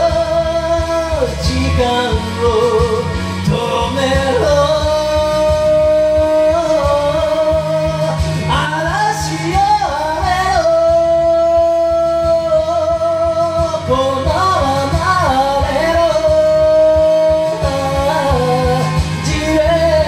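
A person singing a slow Japanese ballad to a karaoke backing track, holding long notes with vibrato.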